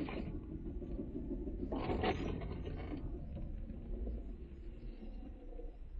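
Jeep Wrangler Rubicon crawling slowly over a snowy trail, heard from inside the cab: a steady low engine and drivetrain rumble, with a brief scrape about two seconds in.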